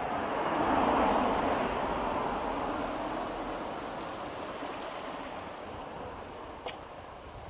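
A road vehicle passing by: tyre and engine noise that swells about a second in and then slowly fades away. A single sharp click near the end.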